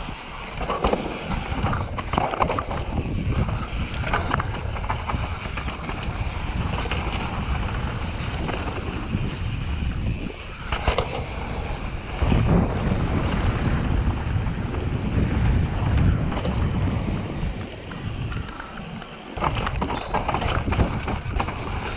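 Cube Stereo full-suspension mountain bike descending a dirt trail at speed: wind buffeting the camera microphone over the rumble of knobby tyres on dirt and roots, with frequent knocks and rattles from the bike over bumps. The rumble grows heavier about twelve seconds in.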